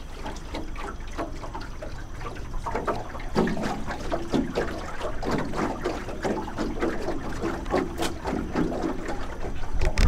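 Laughing kookaburras calling. A rapid chatter of repeated notes, the birds' laughing call, starts about three seconds in and keeps going.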